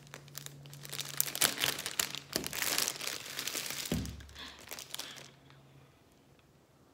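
Crinkling and crackling of a shiny foil-like plastic hair-bundle bag being handled and pulled open, stopping about five seconds in, with a dull thump near four seconds.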